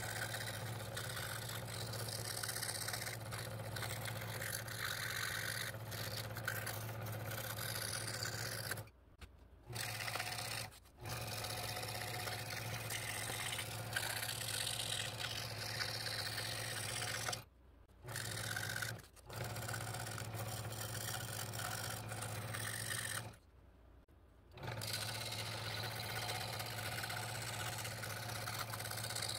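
Scroll saw running with a fine number 3 blade, cutting walnut: a steady motor hum under the hiss of the blade sawing through the wood. It cuts off abruptly in five short gaps.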